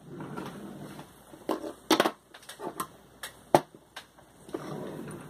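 Small hard objects handled on a work surface: rustling, with several sharp clicks and knocks, the loudest about two-thirds of the way through.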